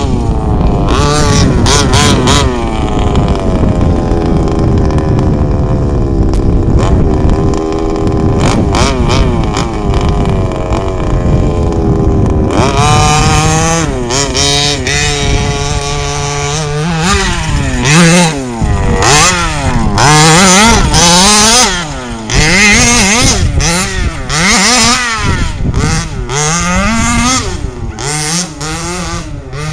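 Small two-stroke petrol engine of a large-scale FG radio-controlled car running loud as it laps a dirt track, revving up and down with the throttle. The pitch drifts gently for the first dozen seconds, then rises and falls quickly about once a second.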